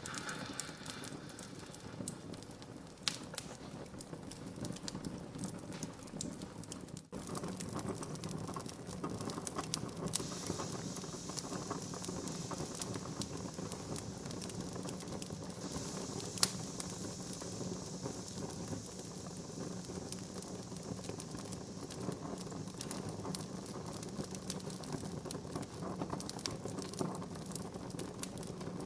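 Wood fire crackling: a steady rush of burning wood with frequent small snaps and a few sharper pops, the loudest about three seconds in and about halfway through. The sound drops out for an instant about seven seconds in.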